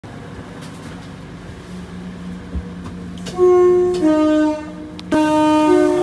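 Two-tone train horn sounded from inside the driver's cab, starting about three and a half seconds in: a high note that slides into a low note, a short break, then the low note again with the high note joining it. Before the horn there is only the cab's steady low hum.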